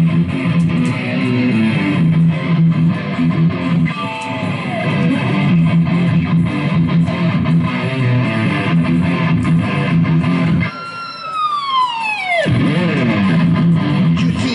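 Small live rock band playing, led by amplified electric guitar over bass. Near the end, the rest of the band drops out and the guitar plays one long falling pitch bend lasting almost two seconds, then the band comes back in.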